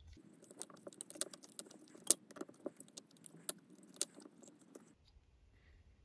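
Light, irregular metallic clicks and clinks of a 2 mm hex key on a folding multi-tool unscrewing a tiny set screw from a bicycle dropper post's remote actuator. The clicking stops about five seconds in.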